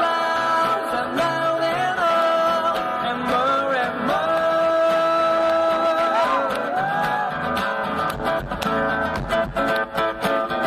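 Live pop-rock song: a singer holds long, gliding notes over guitar, and about eight seconds in the band comes in harder with rhythmic guitar strumming and bass.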